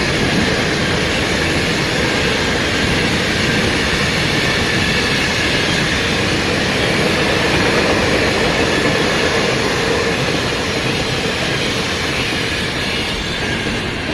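Railway cars rolling past close by, a steady loud rumble and rush of steel wheels on the rails that eases slightly near the end.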